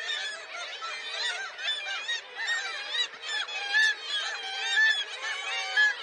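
Black-legged kittiwakes calling at a cliff nesting colony: many short calls overlapping one another, with a few louder ones standing out in the second half.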